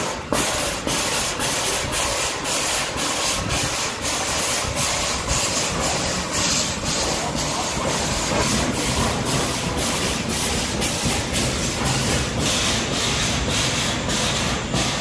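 Vintage steam tram locomotive pulling away with a passenger car: a steady rhythm of exhaust chuffs, about two a second, over a continuous hiss of steam.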